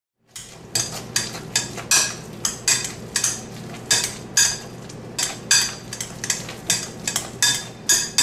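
Wire potato masher working cooked russet potatoes in a glass bowl, its metal head clinking against the glass at about two strokes a second.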